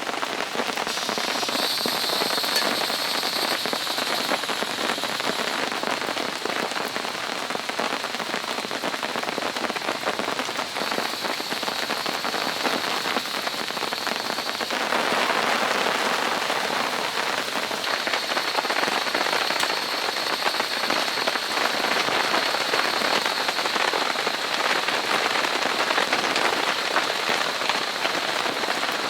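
Steady rain falling, with many small drop hits; it grows denser about halfway through. A faint steady high tone sits in the background for much of the time.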